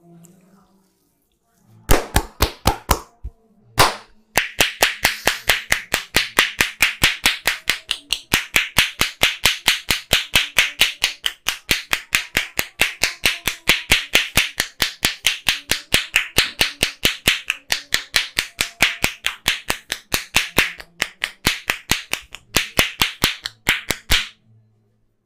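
Percussive massage strokes: a barber's hands rapidly slapping the client in an even rhythm of about four sharp slaps a second. A short run of slaps about two seconds in, a brief pause, then a long steady run that stops about a second before the end.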